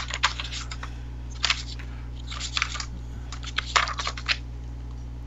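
Paper pages of a maintenance logbook being flipped and handled, crackling and rustling in about four short bursts, heard through a video call.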